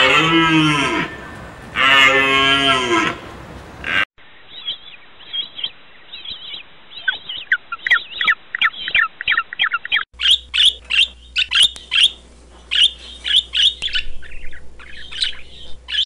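Deer giving two long calls, each rising then falling in pitch, in the first few seconds. After a cut, penguins calling: many short, high squawks in quick succession, growing denser and louder after about ten seconds.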